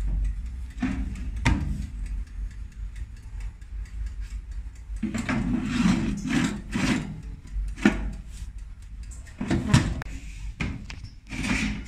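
Countertop toaster oven's door opened with a click, then the metal baking tray of buns knocked and scraped on the wire rack as it is handled, a run of clicks and clatters.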